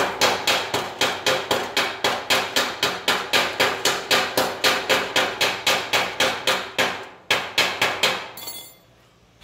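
Chipping hammer knocking slag off a fresh stick-weld bead on steel, rapid even blows about four a second, with a short pause and a few more blows near the end. A brief scrape follows.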